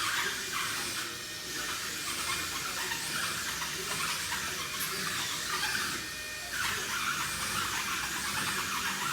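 Wall-climbing remote-control toy car's suction fan and small electric motors whirring with a high-pitched whine, dropping off briefly about six seconds in and then starting up again.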